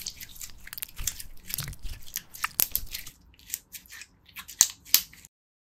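Translucent blue slime squeezed and kneaded by hand close to the microphone: wet squelching broken by many quick, sharp crackles and pops. The sound stops abruptly about five seconds in.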